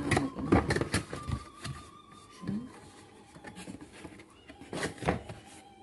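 Scattered knocks and clicks of a boxed glass teapot set and its cups being handled and unpacked, densest in the first second and again near the end.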